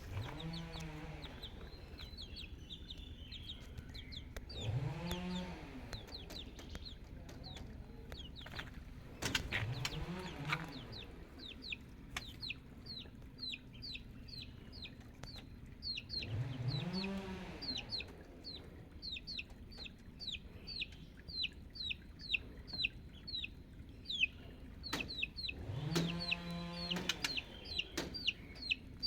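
Chickens calling: about five drawn-out calls from an adult bird, each rising and falling, with a run of high, thin chick peeps, about three or four a second, through the second half.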